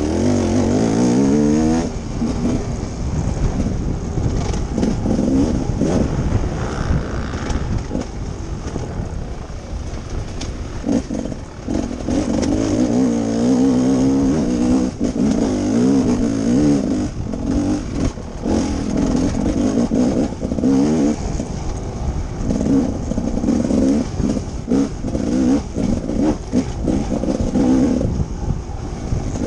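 Off-road dirt bike engine revving up and down under hard riding, its pitch rising steeply in the first couple of seconds and swinging repeatedly after. Frequent knocks and clatter from the bike over rough ground, with wind hiss.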